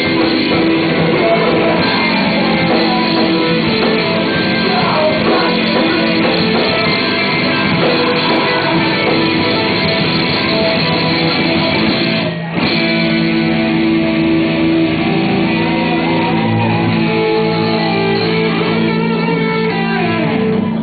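Live rock music dominated by guitar, with some singing, from a band playing in a club; the sound drops out very briefly about twelve seconds in.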